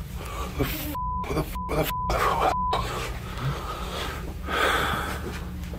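Four short censor bleeps in quick succession, a steady high beep each time the voice is cut out, with brief bits of voice or room noise between them; they blank out swearing. A short louder burst of noise follows near the end.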